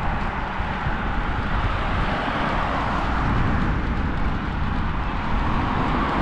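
Steady road traffic noise from cars driving on a main road, with low wind rumble on the microphone of a moving bicycle.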